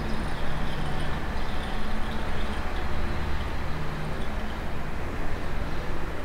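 Steady low rumble with a hiss over it, with no distinct event standing out.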